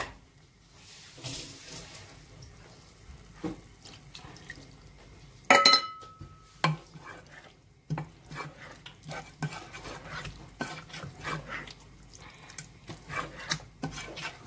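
Wooden spatula stirring and scraping wet chicken curry masala in a nonstick pot, in many short strokes. One loud clang with a ringing metallic tone about five and a half seconds in.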